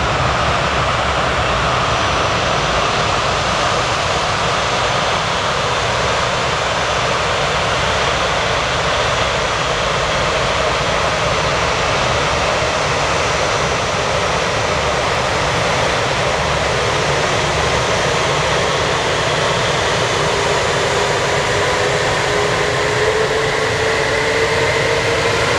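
Airbus A380's jet engines running at low thrust as the aircraft taxis on a wet runway: a loud, steady roar and hiss, with a whine that rises in pitch near the end.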